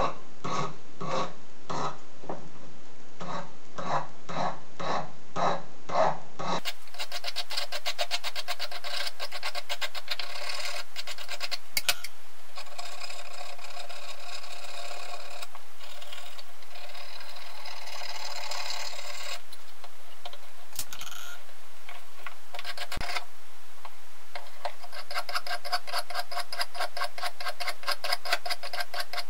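A hand file rasps back and forth on a brass tube lamp stem, at about two strokes a second. About six seconds in the sound changes to quicker, finer rasping strokes over a steady low hum.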